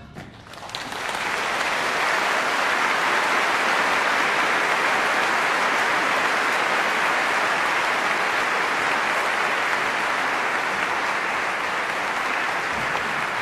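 Large theatre audience applauding in an opera house. The applause swells within the first second and then holds steady.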